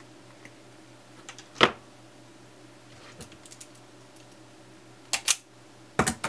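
Sharp clicks of small metal hand tools on a workbench, as side cutters are picked up and used on a short length of wire for a bodge repair: one loud click about a second and a half in, then two quick pairs of clicks near the end. A low steady hum sits underneath.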